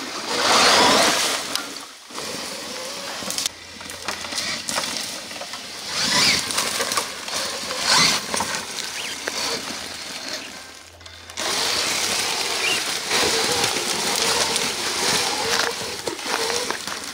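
Large electric RC trail truck, sensored brushless direct drive, crawling over stones and sticks: tyres crunching and scrabbling on gravel with motor and drivetrain noise, loud and uneven, changing abruptly a few times. A faint steady whine comes in during the second half.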